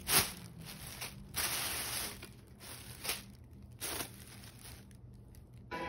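Thin plastic bags crinkling and rustling as they are handled, in several noisy bursts, the loudest just after the start.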